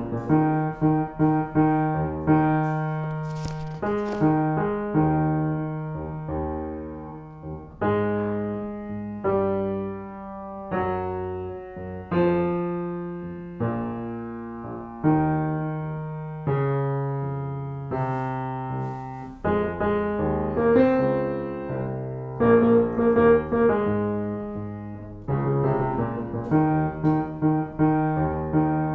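Solo piano playing a slow song in chords, each note struck and then ringing away. A line of notes in the low-middle range stands out against the chords.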